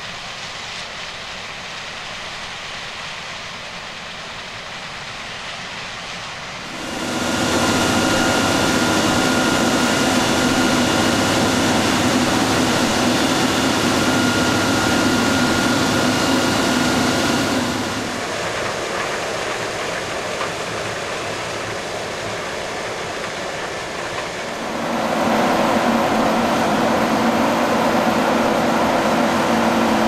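Large agricultural machinery working in a maize harvest: engines and drives running steadily with faint steady tones. The sound jumps louder about a fifth of the way in, drops back a little past halfway, and rises again near the end.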